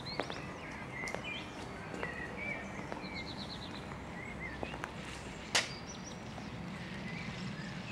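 Faint outdoor background noise: a low steady hum with scattered short high chirps and a few sharp clicks, the loudest click about five and a half seconds in.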